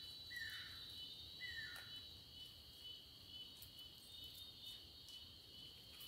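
Faint, steady high-pitched insect chirring, like crickets, with two short falling chirps in the first two seconds and a few faint ticks later on.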